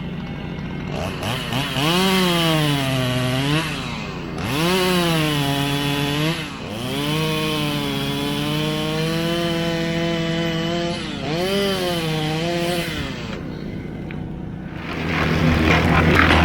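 Two-stroke chainsaw revving and cutting wood; its pitch climbs and sags repeatedly as the chain bites into the wood, with one longer steady cut in the middle. About a second before the end a rougher, lower noise takes over.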